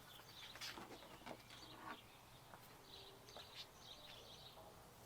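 Near silence: faint outdoor quiet with scattered distant bird chirps and a few soft clicks.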